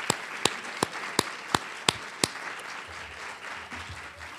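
Audience applauding, with one man clapping close to a podium microphone. His claps are loud and sharp, about three a second, and stop a little past halfway, while the crowd's applause thins out.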